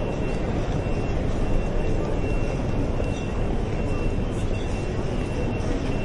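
Railway station concourse ambience: a steady low rumble of trains and the concourse, with indistinct crowd voices blended in and a faint high tone that comes and goes in short dashes.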